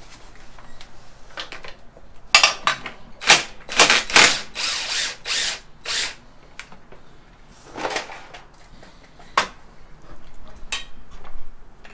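Tools working on fasteners: a run of short, loud mechanical bursts about two seconds in, lasting some four seconds, then a few sharp clicks later on.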